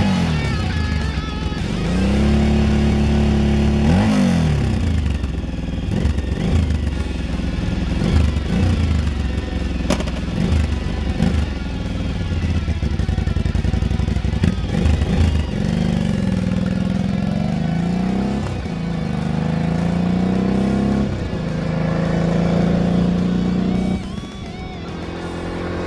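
Kawasaki KLV1000's 996 cc V-twin running through Mivv Oval carbon slip-on exhausts, blipped repeatedly: the pitch rises and falls over and over, settling back toward idle between revs.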